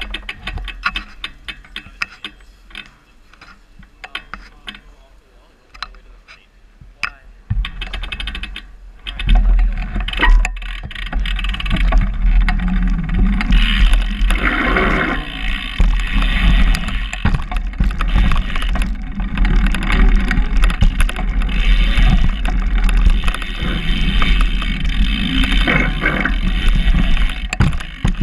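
Light, scattered ticking of a bicycle's freewheel as the bike rolls slowly. About nine seconds in, a loud, steady rush of wind on a helmet camera's microphone, with rumbling tyre noise, as the bike picks up speed riding the track.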